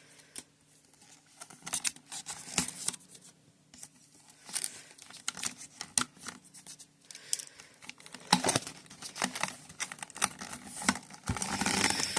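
Plastic packaging crinkling and tearing as a wrapper is pulled off the toy: scattered crackles at first, growing denser and louder in the last few seconds.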